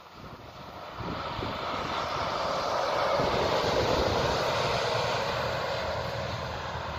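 Articulated Mercedes-Benz Citaro C2 G bus driving past on the road: engine and tyre noise swell as it approaches, are loudest about three to four seconds in as it passes close by, then ease off slightly as it pulls away.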